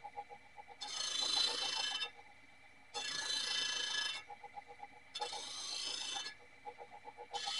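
Edge of a circular steel meat-slicer blade being worked by hand with an abrasive: three scraping strokes of about a second each, two seconds apart, with a fourth starting near the end. Each stroke carries a high ringing tone from the thin blade.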